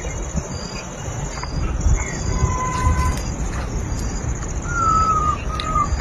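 Outdoor ambience: a low rumble under a steady high insect drone, with a short chirp repeating about once a second. Birds whistle over it, first a level note about halfway through, then longer sliding whistles near the end.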